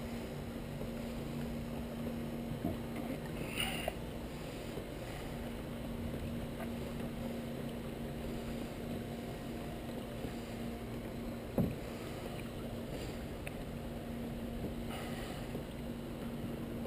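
Kayak gliding through calm flood water: steady water and hull noise under a low, even hum, with a few light knocks, the loudest about two-thirds of the way through.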